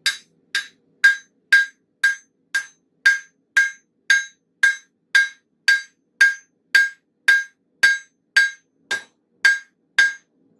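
Forging hammer striking a hot railroad spike on a steel anvil, a steady rhythm of about two blows a second, each with a short metallic ring.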